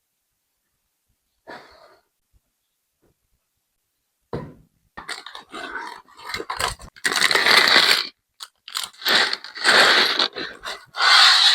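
Plastic LEGO pieces being handled: a run of irregular scraping and rustling noises that starts about four seconds in.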